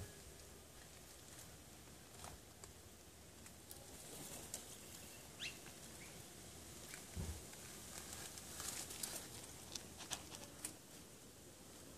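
Sulphur-crested cockatoo nibbling food from a hand: faint, irregular clicks and crunches of its beak, over quiet garden background.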